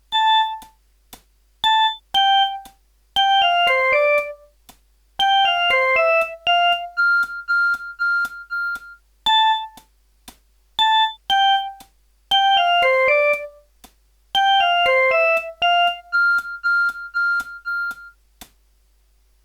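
Samsung GT-E1151 mobile phone playing a built-in ringtone: a short synthesized melody of bright, plinking notes with quick descending runs and a repeated single note. The phrase plays through twice and stops shortly before the end.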